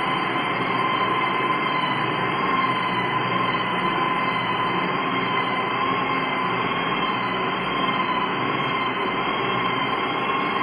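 Nerolac hand-held electric wall sander running steadily while its sanding pad is worked over a dried putty wall to polish it. The motor gives a constant high whine over a rough sanding hiss.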